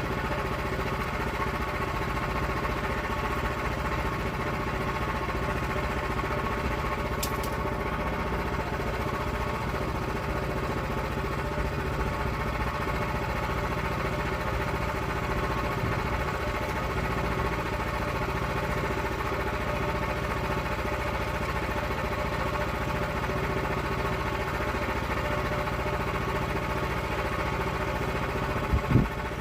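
The engine of a log-milling saw running steadily at an even speed while milling an oak log, with one sharp click about seven seconds in.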